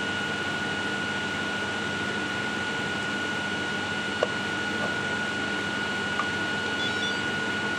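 Steady mechanical hum and hiss with a constant high whine, broken by a short click about four seconds in and a fainter one about six seconds in.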